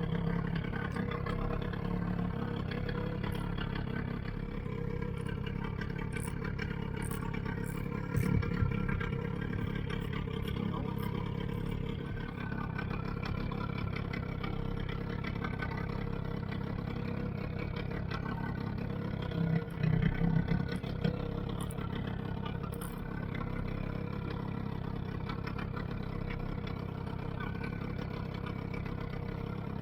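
A boat engine running steadily at low revs, with a couple of brief louder knocks about eight seconds in and again around twenty seconds.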